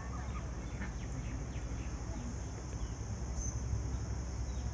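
Steady outdoor insect drone, high and even, with a few faint bird chirps.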